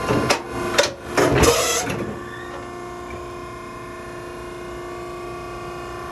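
Maren cardboard baler's hydraulic pump running with a steady hum, with a few sharp knocks and a brief rattling clatter in the first two seconds.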